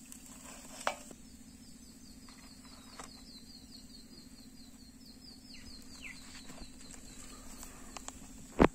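Bird song: a fast trill of repeated high notes, about five a second for several seconds, then two short falling calls, over a steady low hum. A sharp thump near the end is the loudest sound.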